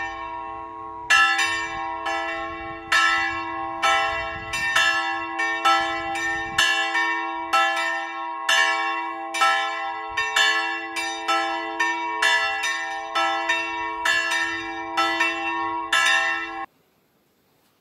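Church bells ringing: a steady run of strikes whose tones ring on and overlap one another, cutting off suddenly near the end.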